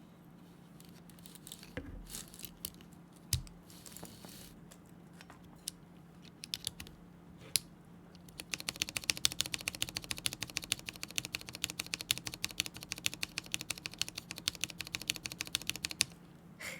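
Keyboard keys with newly fitted keycaps being pressed to check how they sound. First come a few scattered clicks, then from about eight and a half seconds a fast, even run of key presses, around ten a second.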